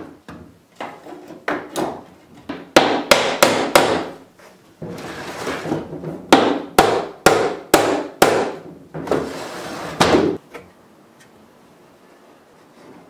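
Hammer driving finish nails into a wooden window stop molding: a few light taps, then sharp strikes in quick runs of four and then five, with a last blow about ten seconds in before the hammering stops.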